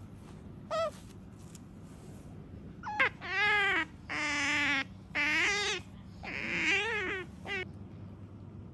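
A small pet animal calling: one brief squeaky call about a second in, then a run of about five long, wavering, whining calls, each under a second, ending with a short one near the end.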